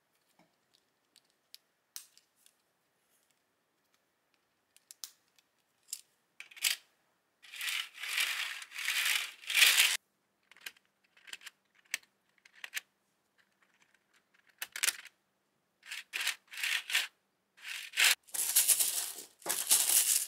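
Plastic Lego Technic tread links clicking and clattering as they are handled: scattered small clicks at first, then from about seven seconds in several rattling bursts a second or two long as a chain of links is moved.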